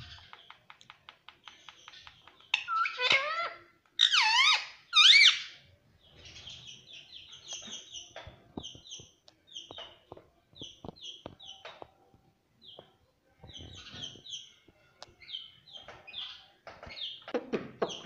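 Indian ringneck parakeet vocalizing. A run of rapid clicks gives way to two loud calls that waver up and down in pitch, about three and five seconds in, then a long stretch of short, quick, high chirps, with a louder call near the end.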